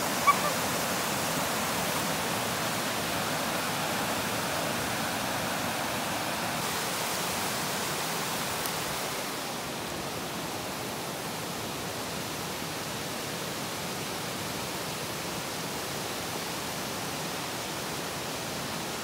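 Steady rush of water pouring over a low stone dam's spillway: a continuous, even noise that drops a little in level about halfway through. One brief click just after the start.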